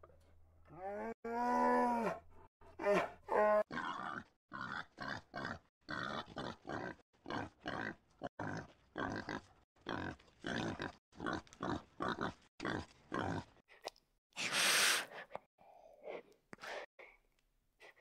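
A wild pig grunting in a quick, even run of short grunts, a little over two a second, with a loud snort near the end. Before the grunting come a few drawn-out animal calls that bend in pitch, over a low hum.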